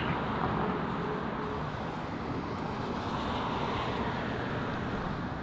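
Steady traffic noise from a city street.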